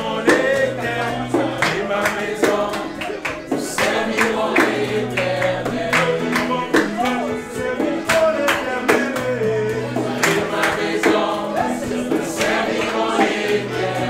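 A worship hymn: several voices singing together over instrumental accompaniment, with a repeating bass line and a percussive beat.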